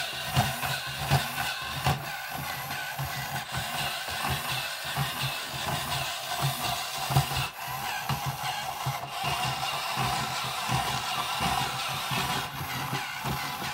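Insect-a-zoid self-build walking robot running: its small motor and plastic gear train whir steadily while its plastic legs tap and scrape on a wooden floor in a repeating rhythm. Its motor pinion gears have been moved about 1 mm up the shaft so they no longer rub on the crown gear.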